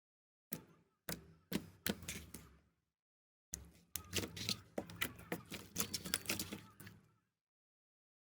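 Slime being squeezed and pressed, giving rapid crackling clicks and pops, in three separate stretches with silent breaks between them.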